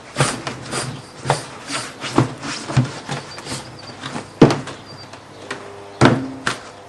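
Repeated knocks and creaking thuds as the bead of a hard remould motorcycle tyre is forced off the rim, about two a second at first, with the loudest knock about four and a half seconds in and two more near the end.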